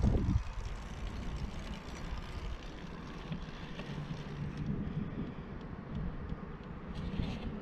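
Riding noise of a bicycle: wind on the camera microphone and tyres rolling on concrete, a steady low rumble. There is a brief louder hiss near the end.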